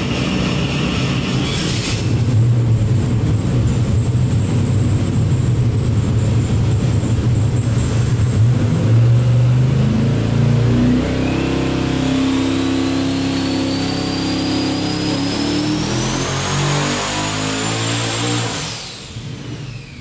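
Twin-turbocharged Steve Morris Engines SML racing engine making a dyno pull: it runs steady under load, then revs up for about seven seconds with a whine rising in pitch alongside it, and drops off sharply near the end as the throttle closes. The pull reaches about 14 pounds of boost and almost 1,400 horsepower, which the builder judges a couple hundred down, needing tuning.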